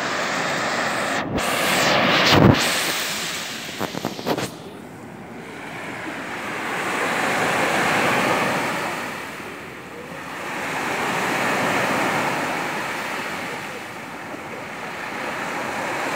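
Small waves breaking and washing up a sand beach, the surf swelling and fading every four seconds or so. Wind buffets the microphone between one and two and a half seconds in, and a few knocks come about four seconds in.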